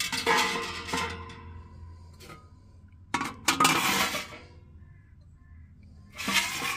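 Stainless steel wire grill rack and cooking tray sliding into a steel wood-stove oven, scraping and clinking on the runners in a few short bursts, with a faint metallic ring between them.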